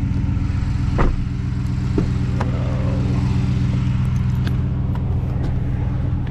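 Chevrolet Silverado pickup's engine idling steadily while still cold after a cold start, with a few light knocks at about one and two seconds in.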